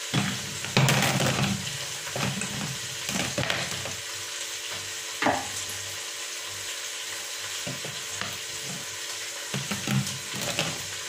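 Sliced bitter melon frying in an uncovered enamel pot, a steady sizzle, with short knocks and clatter of handling on and around the pot, loudest about a second in and again about five seconds in.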